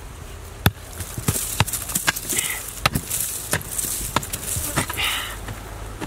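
A hoe chopping into a hard, dry termite mound: repeated sharp strikes, about two a second, as clods of baked earth break away. The first strike, under a second in, is the loudest.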